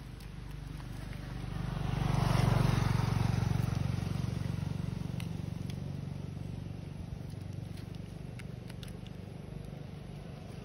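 A motor vehicle's engine running on the road. It grows louder to a peak about two and a half seconds in as it passes, then fades back to a steady engine hum.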